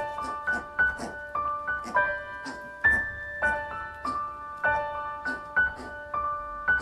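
Background music: a light piano or keyboard melody of separate, crisply struck notes at a steady, bouncy pace.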